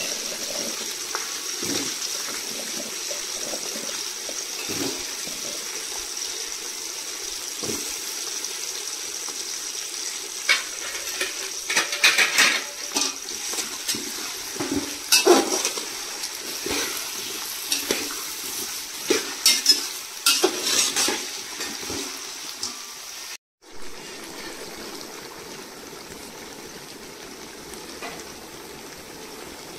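Potatoes, onions and green chillies frying in oil in a large aluminium pot with a steady sizzle. From about ten seconds in, a spatula scrapes and knocks against the pot in a series of clattering strokes. After a short break near the end, a quieter steady hiss follows.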